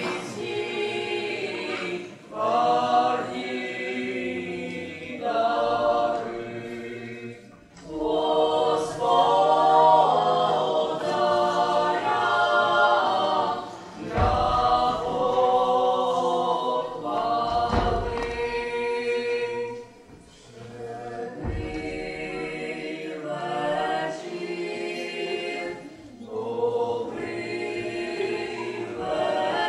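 A choir of voices singing a Christmas carol (koliada) without instruments, in phrases with short breaks between them. Three dull low thumps come in the second half.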